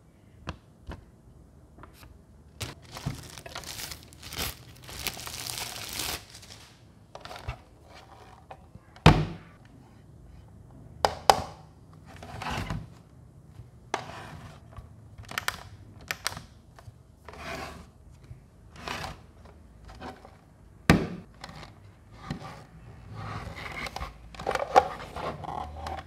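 Unboxing handling noises: a paper manual and plastic wrapping rustling and crinkling, with several sharp clicks and knocks as a plastic case is handled and its lid opened.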